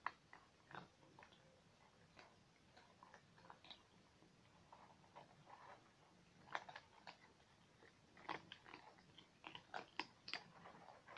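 Several domestic cats chewing food from a shared bowl: faint, irregular short clicks of eating, coming thicker in the second half.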